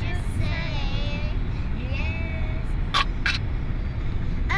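Steady low road noise inside a moving car, with a young child's high voice singing during the first two seconds and two short hissy sounds about three seconds in.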